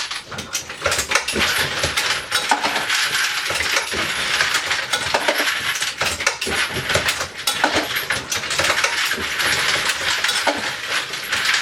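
Dillon XL650 progressive reloading press running with its case feeder and bullet feeder: a steady clatter of brass cases and bullets clinking against metal, with heavier knocks as the press is cycled.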